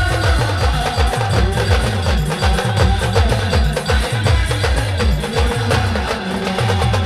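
Adivasi band music played loud: fast percussion with sharp woodblock-like clicks over deep bass notes that slide down in pitch several times a second.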